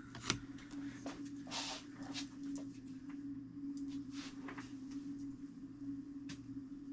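Faint rustling, scraping and light clicks as adhesive tape is picked and peeled off a clock's fusee, over a steady low electrical hum.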